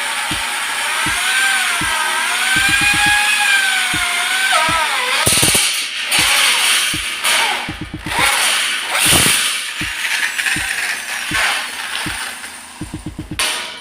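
Cordless drill-driver working on a metal cable tray. Its motor whine rises and falls with the trigger for the first few seconds, then comes in short bursts. Three quick runs of ratcheting clicks are heard along the way.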